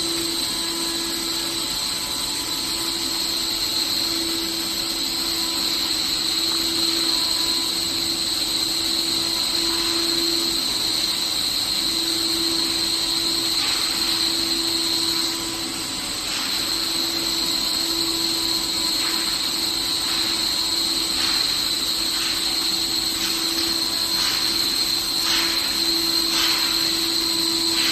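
CNC router spindle running and cutting aluminium composite panel: a steady high whine over a broad hiss, with short rasping bursts through the second half.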